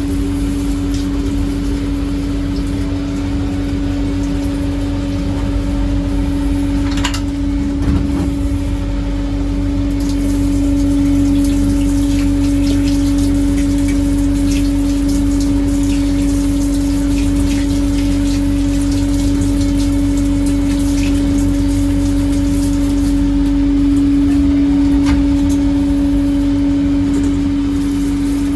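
Blasting machinery running steadily: a constant motor or pump hum with an even hiss of spray over it. There are a few faint clicks along the way.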